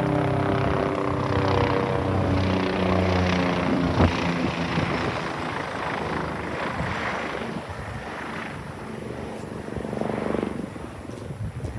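Helicopter flying low overhead: its engine and rotor tones fall in pitch as it passes, then the noise slowly fades as it flies away.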